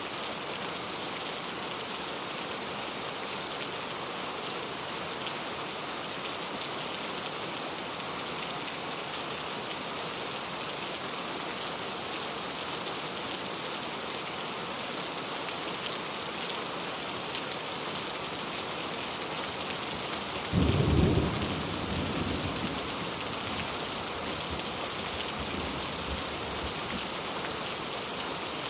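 Steady rain falling, with one low clap of thunder about two-thirds of the way through that rumbles away over a couple of seconds.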